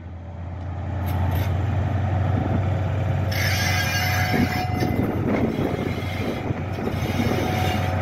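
Class 43 HST power car's diesel engine running as the train moves slowly closer. A steady low hum grows louder over the first second, and a broad hiss from the train joins about three seconds in.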